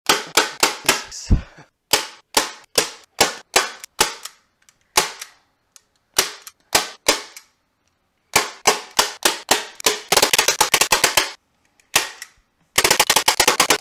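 A hand-held manual staple gun firing staples through upholstery fabric into a chair seat: a long string of sharp snaps, one after another, that run together into rapid bursts of about ten a second near the end.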